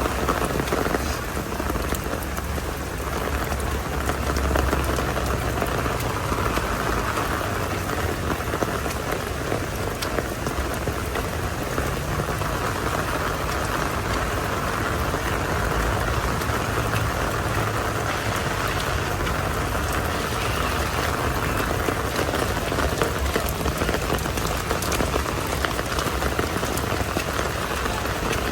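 Heavy rain falling steadily, a continuous even hiss of drops on surfaces with a low rumble underneath.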